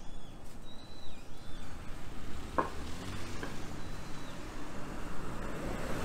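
Cars passing on a street, tyre hiss and engine rumble swelling toward the end as a minivan draws alongside. A few bird chirps near the start and a sharp click or two in the middle.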